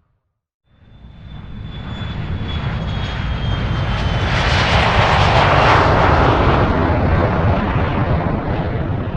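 An airplane flying overhead. Its engine noise swells in from silence, peaks about five to six seconds in and begins to fade, with a thin high whine that slowly drops in pitch as it approaches.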